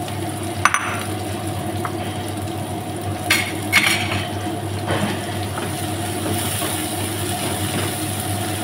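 Diced tomatoes and onion sizzling in a frying pan while a wooden spatula stirs, with a few sharp knocks of utensils against the pan or bowl, the loudest about three and a half seconds in. A steady low hum runs underneath.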